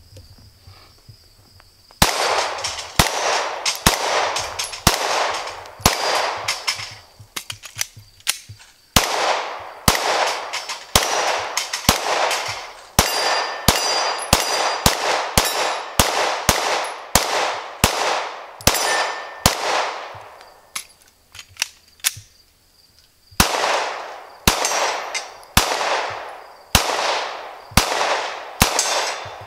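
Glock 19 9mm pistol fired in a string of single shots, about one to two a second, each followed by a trailing echo. The firing starts about two seconds in and pauses twice, briefly near a third of the way through and for about three seconds later on.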